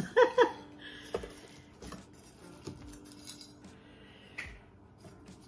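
A short vocal sound at the very start, then a slotted metal serving spoon clinking and scraping faintly against a steel pan and plate as lasagne is scooped out, in scattered light clicks.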